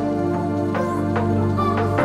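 Instrumental background music with sustained chords and notes struck about every half second.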